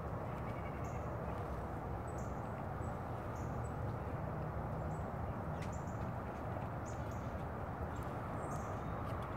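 Steady outdoor background noise with short, high bird chirps scattered through it.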